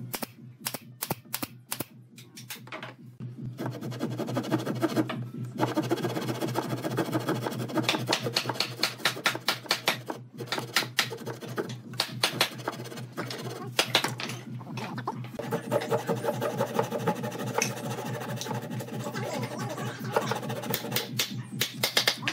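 A pneumatic brad nailer fires several quick shots into thin wooden strips. About three seconds in, a thin flush-cut hand saw starts cutting through the strip ends in fast, rasping strokes, pausing briefly now and then.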